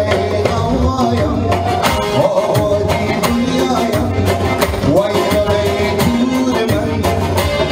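A man sings an Afghan song live into a microphone, backed by electronic keyboard and a steady percussion beat.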